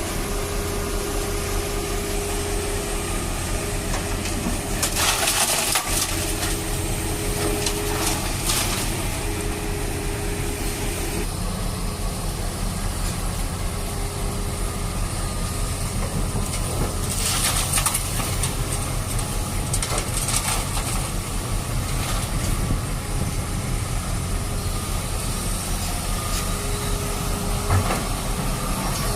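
Truck engine sound running steadily at a low hum, broken by a few brief crunching, scraping noises about five and eight seconds in and again around seventeen to twenty seconds.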